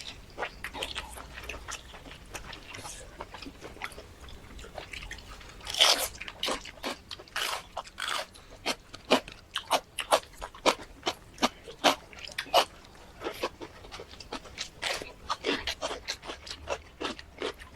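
Close-up crunching and chewing of crispy food in the mouth: a run of irregular sharp crunches, the loudest about six seconds in and coming faster after that.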